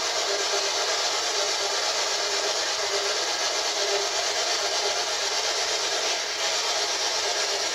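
Spirit box (PSB11) playing a steady hiss of radio static through a small speaker, waiting for a spirit's answer.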